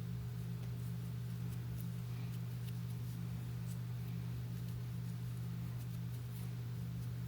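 Steady low electrical or fan hum, with faint light ticks and rustles scattered through the middle.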